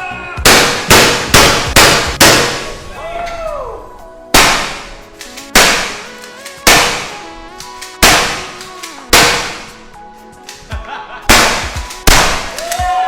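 Gunshots fired at a range, each followed by a short ringing echo: a quick string of five shots about 0.4 s apart, then single shots roughly every second, with faint music underneath.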